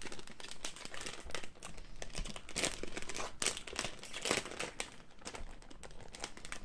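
A thin clear plastic zip bag crinkling and paper sheets rustling as documents are pulled out and unfolded by hand, with irregular crackles throughout.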